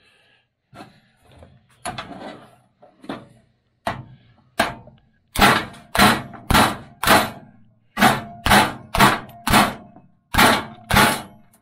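Hammer striking a steel impact socket to drive a ball bearing into a cast-aluminium snowmobile chain case. A few light knocks come first; then, about five seconds in, about ten sharp blows follow in three quick groups, with a faint metallic ring, seating the bearing.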